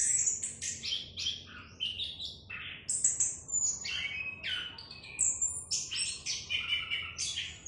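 Chestnut-capped thrush singing a fast, varied, continuous song of high chirps and whistles.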